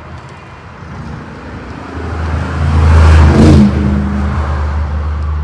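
A motor vehicle on the road passing close by: its noise builds steadily to a peak about three seconds in, then eases off, leaving a steady low engine hum.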